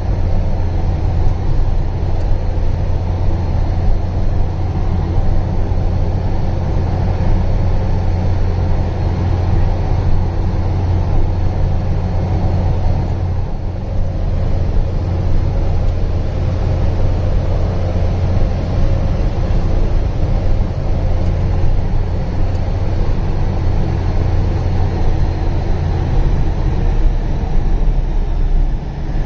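Truck engine running steadily with a heavy low rumble and road noise, heard from inside the cab while driving over a rough dirt road.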